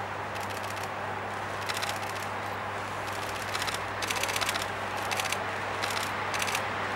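Camera shutters firing in rapid bursts of clicks, several bursts in a row, over a steady low hum.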